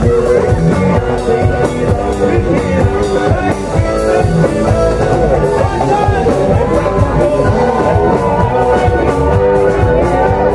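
Loud dance music with singing and a steady drum beat.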